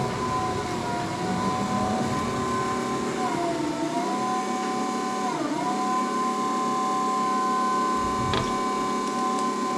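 A machine running with a steady whine whose pitch sags briefly twice, about three and a half and five and a half seconds in, as if under momentary load. There is a single short knock near the end.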